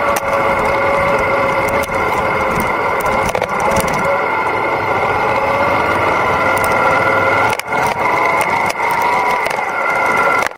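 Yamaha Ténéré 700's 689 cc parallel-twin engine running while the bike rides over a rough dirt track, with a steady whine over a low rumble. Many sharp clicks and rattles from the bike and the track surface run throughout.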